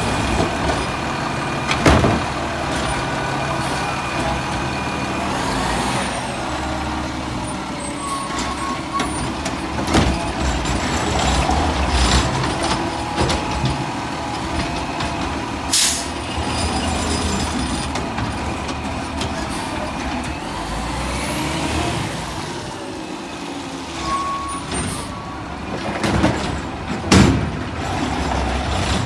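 Diesel Autocar ACX garbage truck with a McNeilus ZR automated side-loader running while its arm grabs, lifts and dumps wheeled carts. Several sharp bangs come from the carts and arm, with a short air-brake hiss about halfway through.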